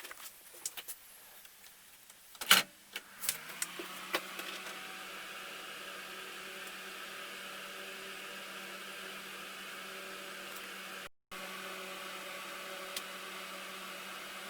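A few clicks and a loud knock, then a workshop ventilation fan starts up: its hum rises briefly in pitch as it spins up and settles into a steady running tone with a hiss of moving air.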